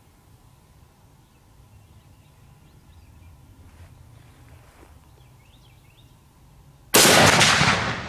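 One very loud shot from an Armalite AR-50 .50 caliber bolt-action rifle with a muzzle brake, about seven seconds in, its blast ringing away over about a second.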